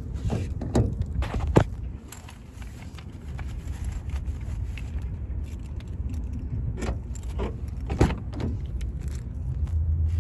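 Hand pulling the exterior door handle of a 2019 Honda Civic Hatchback and the door unlatching and opening: a few sharp clicks in the first two seconds, then more clicks and rattles between about seven and eight and a half seconds, over a low steady rumble.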